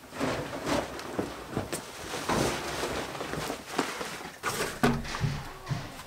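Rustling, scraping and irregular knocks and clatter of things being handled and moved about, with footsteps; near the end a small wooden rack is carried out.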